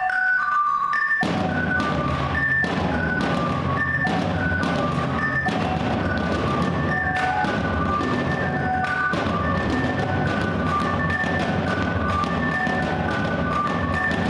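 Percussion ensemble playing: a marimba repeats a quick pattern of high notes, and about a second in drums (snare drums, toms and bass drum) join with dense, regular strokes under it.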